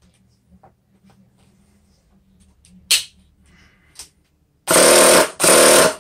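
Handheld electric starter spinning a bare nitro RC engine over in two short bursts near the end, the engine turning against very good compression. A sharp knock of handling about halfway through.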